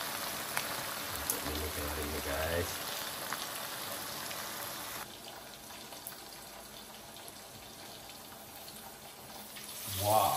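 Pork pieces frying in soy sauce in an aluminium wok, a steady sizzle. About halfway through it drops sharply to a fainter hiss, with the wok covered by its lid.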